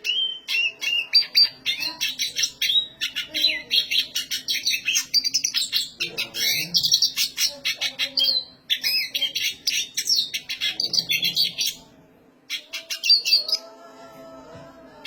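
Black siskin in full song, a long, fast, high run of twittering chirps and trills, pausing briefly near the end before a few more phrases.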